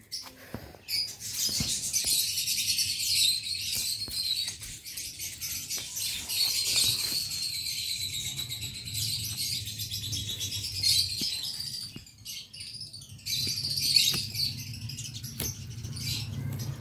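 A dense chorus of small birds chirping and twittering, dropping away briefly about twelve seconds in, over a low steady hum, with scattered clicks.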